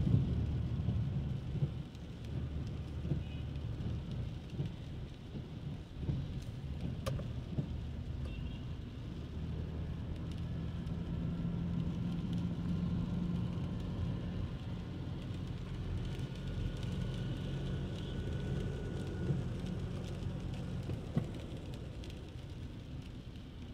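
Rain falling on a city street with road traffic, a steady low rumble throughout. A vehicle engine's hum stands out from about ten to twenty seconds in.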